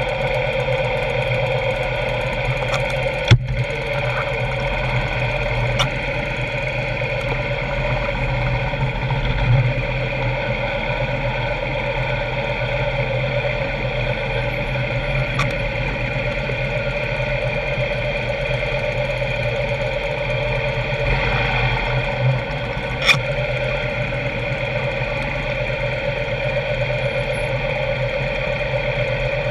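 Motorcycle engine running steadily at low speed, with a sharp click about three seconds in and another near the end.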